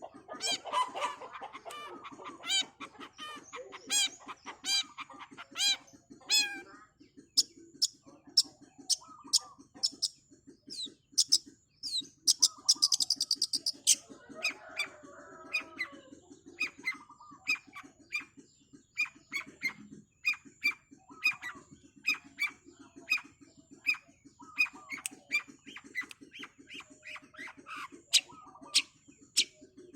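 Long-tailed shrike (cendet) singing a fast run of sharp, high, repeated calls, with a rapid buzzing trill a little before halfway. A low, fast, even pulsing sits underneath.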